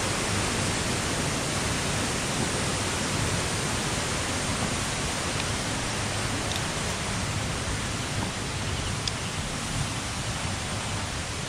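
Water of a waterfall rushing in a steady, unbroken wash of noise.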